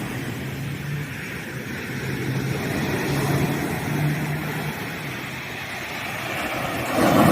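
Sea surf washing on a beach, with a wave breaking near the end, while a low steady engine hum runs under it for the first four to five seconds and then fades out.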